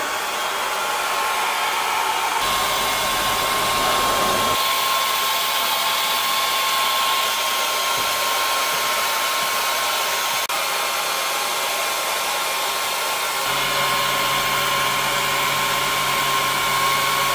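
Longer B1 30 W diode laser cutting plywood: a steady blowing hiss from its air assist and head fan, with a thin constant whine running through it. A low hum comes in about two seconds in, drops out about two seconds later, and returns near the end.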